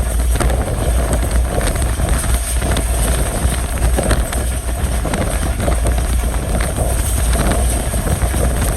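Passenger train running along the track, with a steady low rumble of wheels on rail, scattered faint clicks, and wind buffeting the microphone.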